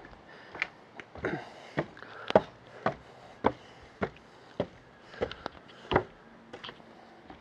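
Footsteps climbing wooden outdoor stairs and onto a wooden walkway, a steady tread of about two steps a second.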